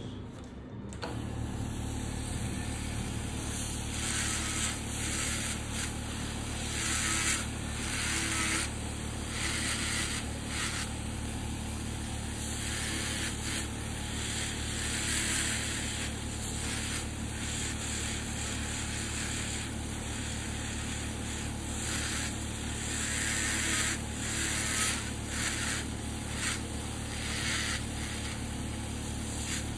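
Podiatry electric nail drill with a rotary burr running steadily on a fungal big toenail. It starts about a second in, and a hissing grind comes and goes as the burr touches the nail.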